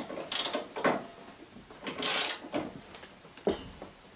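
Ratchet wrench tightening the bolts on a motorized towing dog's frame after its drive chain has been tensioned: a few short ratcheting rasps with pauses between.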